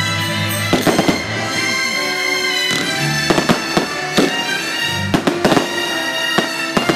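A fireworks display sets off a series of sharp bangs, roughly one every second or so, with a close cluster about two-thirds of the way through. Loud music with sustained tones plays throughout underneath the bangs.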